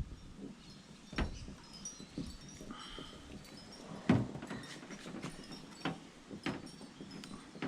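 Scattered clicks and knocks of pliers and car door handle parts being worked into place, the loudest a sharp knock about four seconds in.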